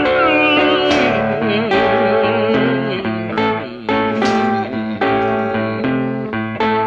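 Background music: an instrumental break in a blues song, plucked guitar notes, some bending and sliding in pitch, over a steady bass line.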